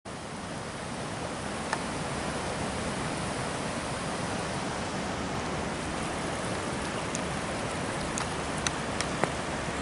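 Steady rush of a flood-swollen creek running over rocks and a small ledge, with a few sharp clicks, one about two seconds in and several near the end.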